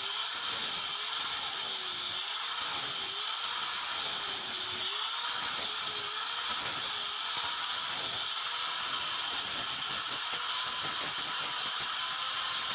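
Angle grinder with an abrasive sanding disc running against a razor's handle, a steady whirring grind. The motor's pitch dips and recovers about once a second as the disc is pressed on and eased off, then holds steadier in the second half.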